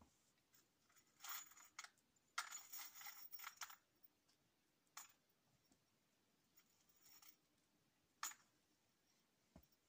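Mostly near silence, broken by faint scattered crackling rustles in the first few seconds and two short sharp clicks, about five and eight seconds in, from a person handling things at the hut in the snow.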